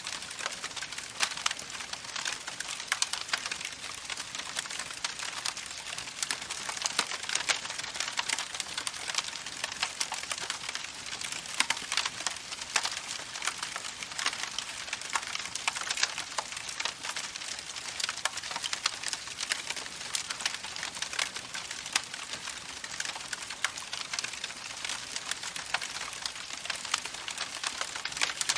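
Campfire crackling, with frequent sharp pops and snaps, over the steady rush of a babbling creek.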